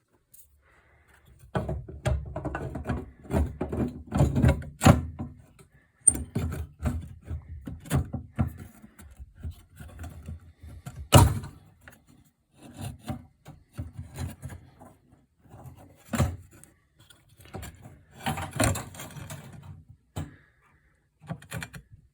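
Irregular knocks, thunks and rubbing of things being handled close by, with one sharp knock about eleven seconds in.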